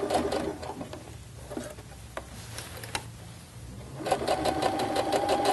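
Baby Lock domestic sewing machine stitching a seam in short runs: the hum and quick, even ticking of the needle stop about half a second in and start again about four seconds in.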